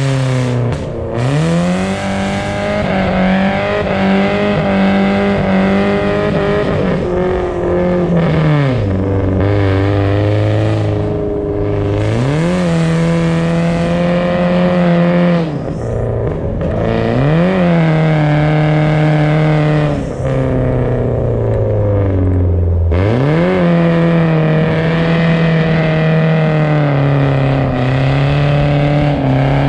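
BMW car engine held at high, steady revs while drifting on an icy road. Several times the revs drop briefly and sweep back up, about seven times in all.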